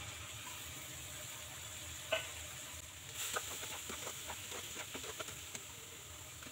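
Raw meat pieces sizzling quietly in spiced onion masala in a nonstick kadai. A steel spatula knocks once against the pan about two seconds in, then scrapes and clicks as the meat is stirred and turned in the masala.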